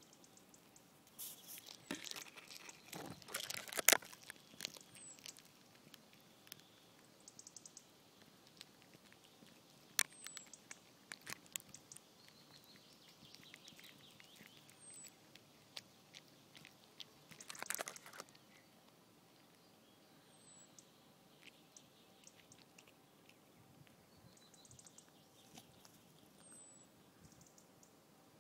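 A cat chewing and crunching through a mouse, bones cracking in irregular bursts of sharp crunches, loudest in the first few seconds, with quieter chewing between.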